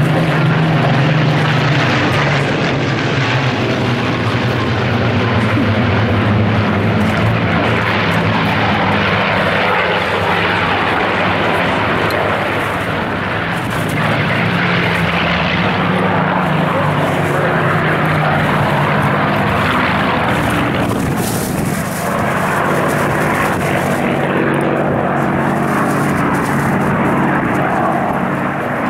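Piston engines of a formation of Spitfire fighters droning steadily as they fly past, swelling and easing slightly as the aircraft pass.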